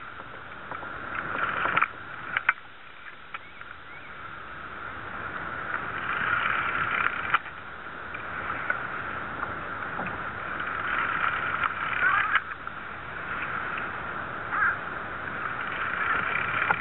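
Fishing reel being wound in against a fish on the line: a raspy whirr that swells and fades in waves, with a few sharp clicks.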